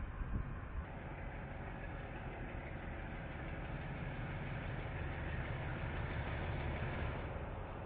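Diesel locomotive engine running with a steady low drone, picked up by a security camera's microphone.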